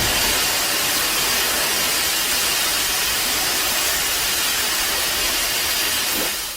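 A Kiryu (Mechagodzilla) sound effect: a loud, steady rushing hiss like venting steam or a jet blast, fading away near the end.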